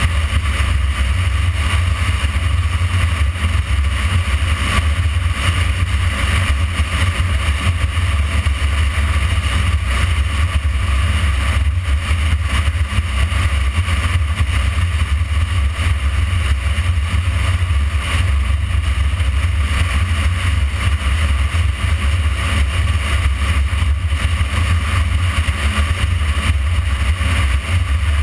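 Wind rumbling steadily on the microphone of a camera mounted behind a motorcycle's windscreen, with the motorcycle's engine and road noise underneath at a steady cruise.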